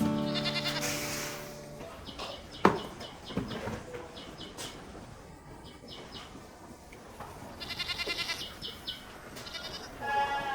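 Goats bleating: several high, quavering calls that come and go, with a sharp click about two and a half seconds in.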